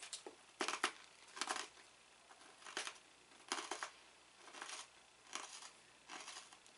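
Crisp, fortune-cookie-textured cinnamon cookie being chewed with the mouth closed: about seven short crunches, unevenly spaced.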